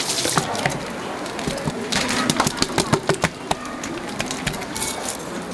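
A heavy sashimi knife striking a wooden cutting board, a quick run of about eight sharp knocks at roughly five a second near the middle, over a steady background hum.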